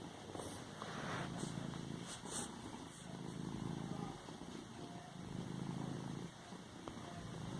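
Domestic cat purring close up, the purr swelling and easing with each breath, about every second and a half.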